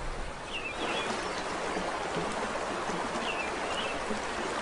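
Flowing river water, a steady rushing hiss that swells about a second in, with a few short bird chirps over it.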